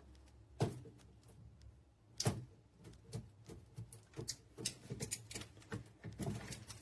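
Scattered light clicks and knocks of parts and packaging being handled by hand, sparse at first and coming thicker in the second half.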